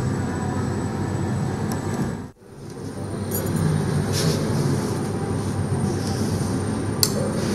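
Steady, rough rumbling run of a Sound Chaser, a small motorised toy record player with its stylus riding a track made of cut vinyl record pieces. It cuts out for a moment about two seconds in, then resumes.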